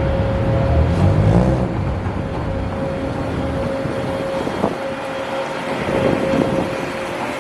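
A vehicle engine running steadily: a constant drone with a held droning tone, the low rumble heaviest in the first couple of seconds.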